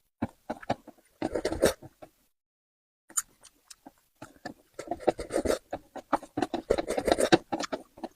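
Close-up eating sounds from a person eating spicy braised carp: wet smacking, slurping and chewing in irregular bursts, with a short pause near the middle.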